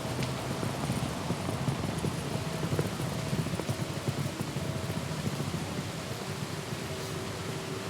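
Steady rain falling, an even, dense patter with no let-up.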